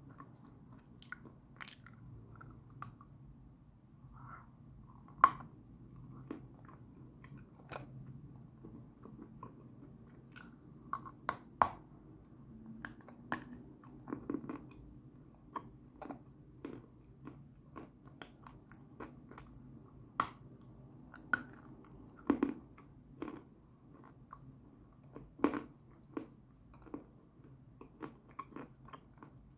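Close-up crunchy biting and chewing of a lump of white chalk. Irregular sharp crunches run over a faint low hum, with a loud bite about five seconds in and more loud crunches in the second half.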